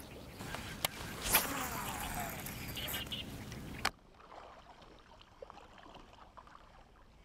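Water sloshing and splashing around an angler wading in a shallow river, with a few sharp clicks and a brief whirr that falls in pitch. About four seconds in it drops suddenly to faint lapping water and soft clicks from a baitcasting reel in his hands.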